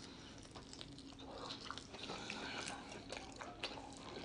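Close-up biting and chewing of a barbecue-sauced chicken wing drummette: a quiet, steady run of small wet clicks and crackles.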